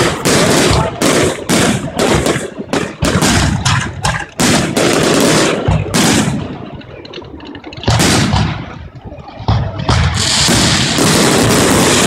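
Aerial fireworks bursting in a rapid barrage of sharp bangs, several a second, for about the first six seconds. A lull follows with a couple of single bangs, then a steady dense rushing noise over the last two seconds.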